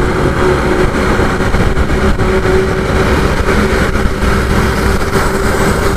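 Motorcycle riding at a steady speed: a steady engine hum under heavy wind rumble on the action camera's microphone.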